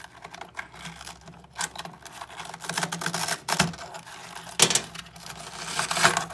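Cracked boron carbide ceramic fragments of an enhanced SAPI armor plate clicking and crunching as they are picked and pried out of a bullet-damaged area by hand: rapid, irregular clicks with a sharper snap about four and a half seconds in.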